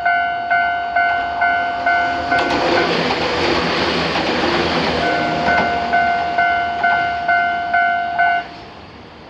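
Japanese level-crossing warning bell ringing, a two-tone electronic clang about twice a second. A train passes for a couple of seconds in the middle with a rush of wheel and running noise. The bell then stops abruptly near the end as the crossing clears.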